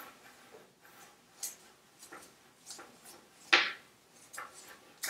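Dremel flex shaft coupling being screwed by hand onto a Bosch GRO 12V-35 rotary tool: scattered light clicks and rubbing as the threads and cable are handled, with one sharp, louder click about three and a half seconds in.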